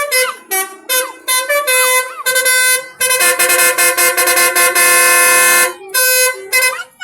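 Basuri telolet horn on a bus playing a tune: a quick run of short multi-tone horn notes, then a long held chord about three seconds in, then a few more short notes near the end.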